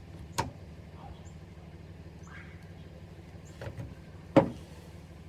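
Sharp knocks from a wrench working the fittings on a train horn kit's air valve: a light knock about half a second in and a loud, sudden crack near the end as a tight fitting gives. A low hum runs under it all.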